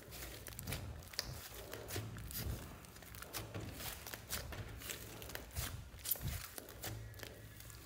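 Hands kneading and squeezing a large mass of slime mixed with clay, giving irregular sticky clicks and crackles as it is pressed and pulled, over a low rumble of handling.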